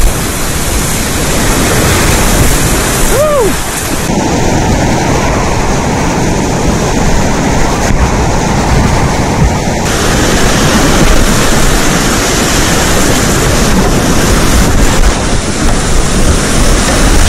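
Whitewater rapids rushing and splashing right around a kayak, loud, with wind buffeting the microphone. A short whoop from a person comes about three seconds in, and for several seconds in the middle the water sounds duller as the highs drop away.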